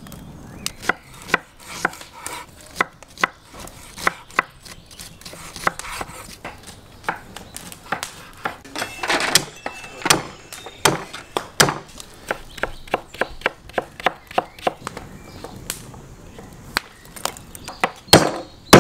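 Irregular sharp knocks and taps, about one or two a second, with the loudest ones near the end.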